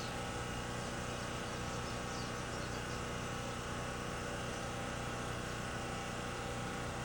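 Steady low machine drone with an even hum, unchanging throughout.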